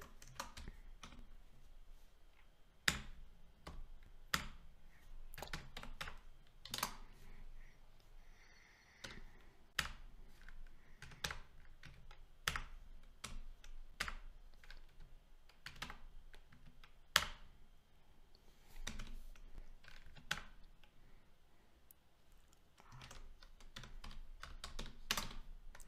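Typing on a computer keyboard: irregular keystrokes with pauses, and now and then a louder key strike.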